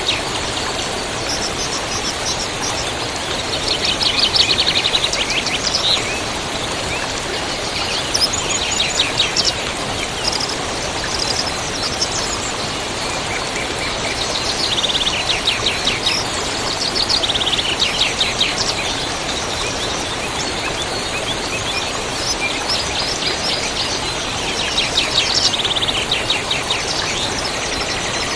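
Songbirds singing in short phrases of rapid chirping trills, a new phrase every few seconds, over the steady rush of a river.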